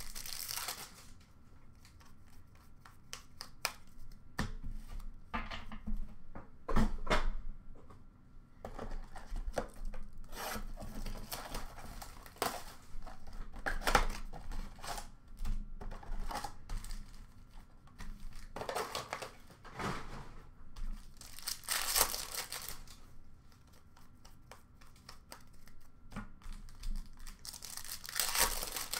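Hockey card pack wrappers being torn open and crinkled by hand, with many small crackles and a few louder rips about two-thirds of the way through and near the end.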